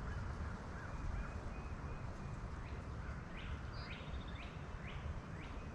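Wind rumbling on the microphone, with a bird giving a series of about six short, sharp, upward-sweeping calls, roughly two a second, in the second half.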